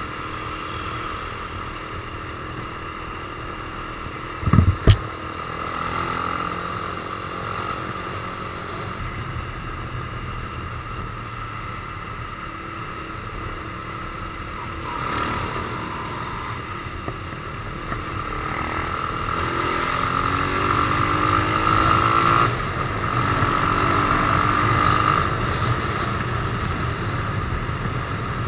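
Sport motorcycle engine running as it is ridden through traffic, its pitch climbing as it accelerates in the second half. Two brief loud thumps come about five seconds in.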